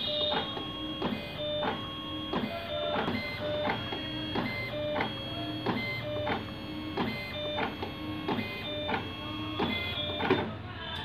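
Automatic paint tinting machine dispensing colorant into a paint can: its motors whir in steady tones that change pitch from step to step, with a click about twice a second. It stops near the end.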